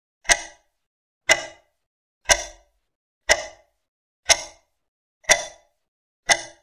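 Clock ticking, used as a quiz countdown sound effect: sharp ticks once a second, each with a brief ring.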